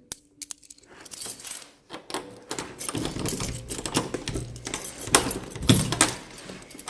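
Footsteps and handling noises, a string of clicks, knocks and light clinks, sparse at first and busier from about two and a half seconds in.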